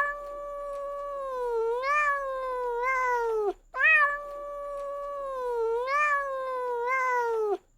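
Domestic cat meowing: two long, drawn-out meows, the same call heard twice, each wavering up and down in pitch before falling away at the end. The second begins a little under four seconds in.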